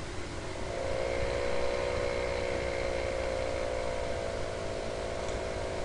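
A steady mechanical hum with a low drone beneath it; a higher humming tone comes in about half a second in and holds steady.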